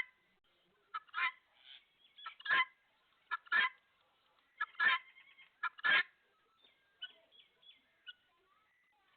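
Chickens calling: short, harsh calls about once a second, each led by a brief quieter note, giving way to only faint chirps in the last few seconds.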